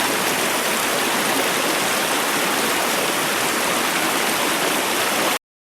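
Mountain trout stream rushing, a steady even hiss of running water that cuts off abruptly about five seconds in.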